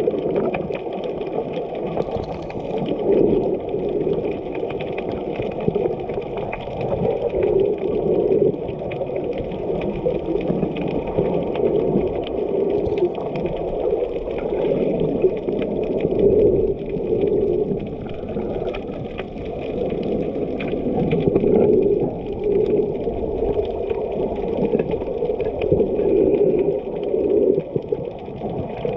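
Water sloshing and rushing around a snorkeler's camera, heard muffled underwater: a steady low rush that swells irregularly every second or two.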